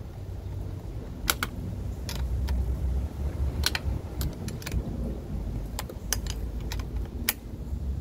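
About a dozen sharp metallic clicks and taps at irregular intervals, starting about a second in, as tools and metal parts are handled during fitting of a scooter steering damper. A steady low rumble runs underneath.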